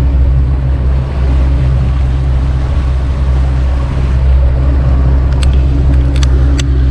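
Motorboat engine running steadily with the boat under way, a loud, even low drone, with wind and water rushing past the hull.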